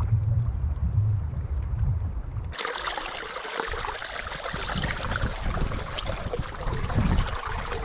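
Wind buffeting the microphone. About two and a half seconds in, this switches abruptly to water splashing and rushing along the side of an open canoe, with the paddle trailing in the water as it moves along.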